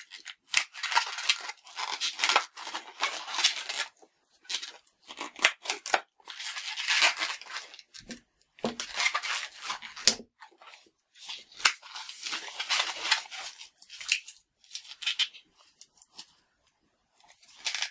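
A yellow 160 latex modelling balloon squeaking and rubbing under the fingers as it is twisted into a banana. The sound comes in bursts of a second or two with short pauses, and a few sharp clicks come about nine and ten seconds in.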